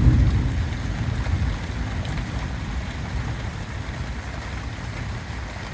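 Steady rain hiss with a low rumble of thunder that fades away over the first few seconds.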